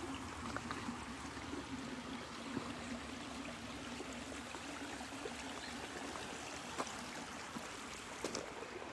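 A small stream of water coming down from the mountain, running and trickling steadily.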